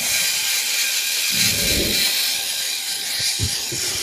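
Steady hiss with low rubbing and knocking noises about a second and a half in and again near the end, typical of a phone being handled and moved while recording.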